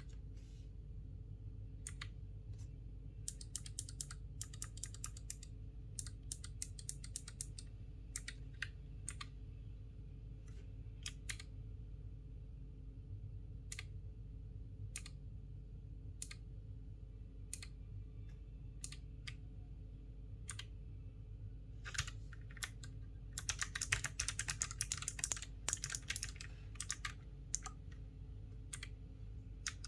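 Keychron K3 V2 low-profile mechanical keyboard with Gateron Blue switches being typed on: clicky keystrokes in short runs of fast typing with single presses between, the longest and densest run about three quarters of the way through. A steady low hum lies underneath.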